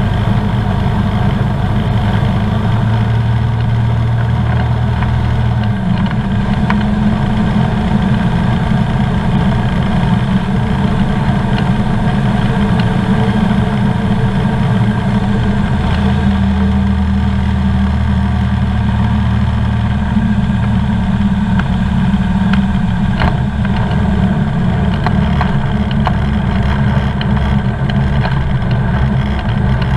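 Comco Ikarus C42B ultralight's propeller engine running steadily, heard from inside the cabin with air rushing past, its note shifting a couple of times with throttle changes on the approach. A few light knocks come about three-quarters of the way through, as the wheels touch down.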